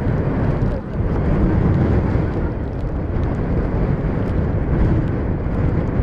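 Strong, gusty wind blowing across the microphone: a loud, low rumbling noise that surges and eases, with a brief dip about a second in.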